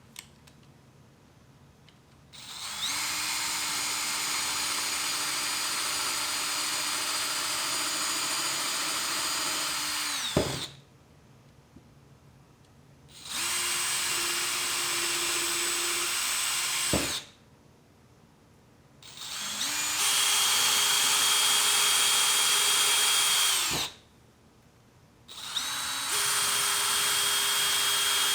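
Electric drill run four times in bursts, the first about eight seconds long and the others a few seconds each. Each burst speeds up to a steady whine and then stops with a sharp click.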